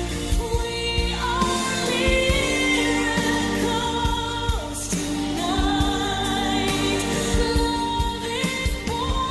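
Christmas pop song: long held sung notes that glide from pitch to pitch, over instrumental backing with a steady beat.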